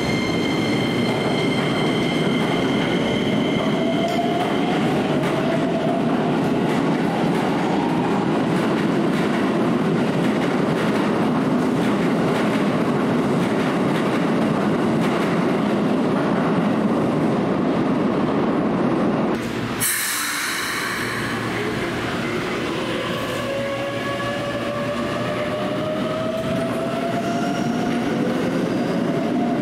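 Keikyu 1000-series electric train pulling out of an underground station: rolling wheels and traction motors whining up in pitch as it accelerates, with some wheel squeal. About two-thirds of the way through, the sound cuts abruptly to another Keikyu train, a 600-series set with a 1000-series set, running along the platform with its own rising motor whine.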